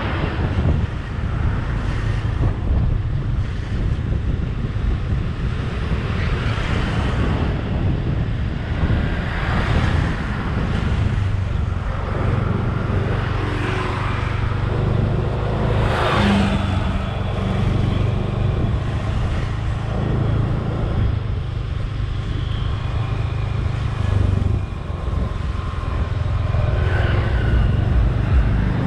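A vehicle driving along a street: a steady low engine drone with wind buffeting the microphone. Road noise swells now and then, with a sharper rush about sixteen seconds in.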